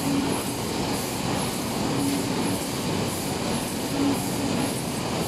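Box embossing machine running, with hall machinery noise around it: a steady mechanical rattle, a short low tone that comes back about every two seconds, and faint high ticks about twice a second.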